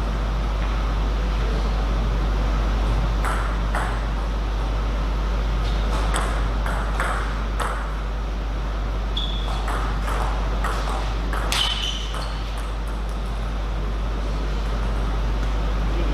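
Table tennis rallies: a celluloid ball clicking back and forth off bats and table in quick runs of hits, with pauses between points. A steady low hum runs underneath, and two brief high squeaks come in the second half.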